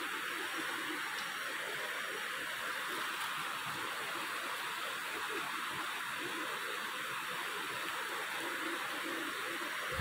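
Steady rush of flowing water, an even hiss that holds at one level throughout.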